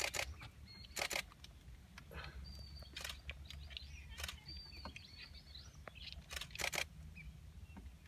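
Camera shutters firing in short bursts of clicks, a handful of times, over a steady low hum and faint bird calls.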